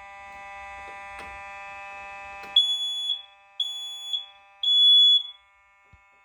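First Alert smoke alarm sounding under a manual test: three loud, high-pitched beeps of about half a second each, about a second apart, the temporal-three (code 3) alarm pattern. A click comes just before the first beep, over a steady electrical hum.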